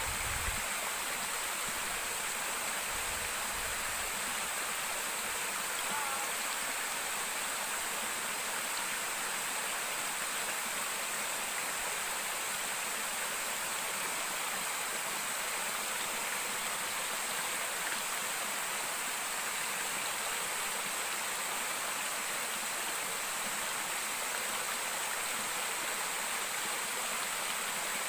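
Steady rush of flowing river water and a waterfall, an even hiss with no letup.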